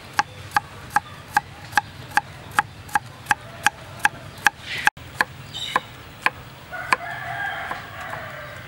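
Kitchen knife chopping carrots on a chopping board in an even run of chops, about two and a half a second, which stops about six seconds in. Near the end a rooster crows once.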